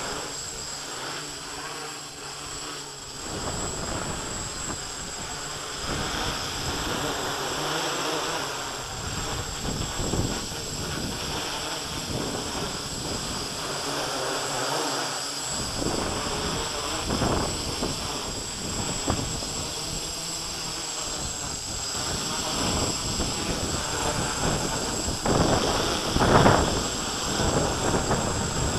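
Q450 quadcopter's electric motors and propellers buzzing as it flies in gusty wind, with wind buffeting the microphone in uneven surges.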